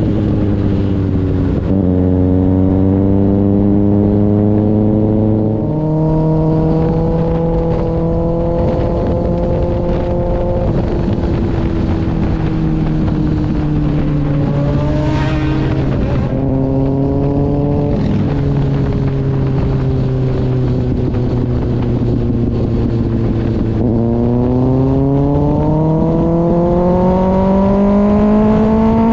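Kawasaki ZX-6R's inline-four engine running through an IXIL aftermarket exhaust. The engine note shifts in steps several times, holds fairly steady through the middle, and rises steadily near the end as the engine revs up.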